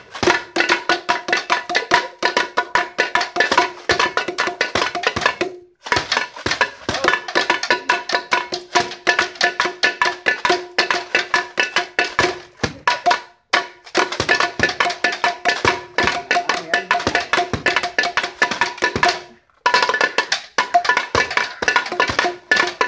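Improvised percussion beaten with sticks in a fast, driving Nasik dhol rhythm, with a steady metallic ringing over the strokes. The playing stops briefly three times and starts again.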